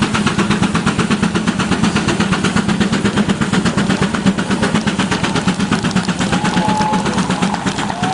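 Case steam traction engine working under heavy load, its exhaust beating up the stack in rapid, even chuffs. A brief steady higher tone sounds near the end.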